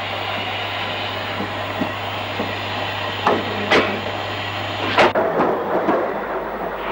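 Steam locomotive moving a rake of coaches: a steady noisy rumble with three sharp metallic clanks in the second half, over a constant low hum that stops about five seconds in.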